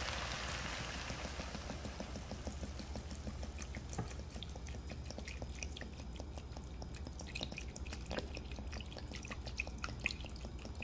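Water poured from a plastic bottle into a pot of sautéed diced pork and vegetables, trickling and splashing onto the food with many small irregular drips.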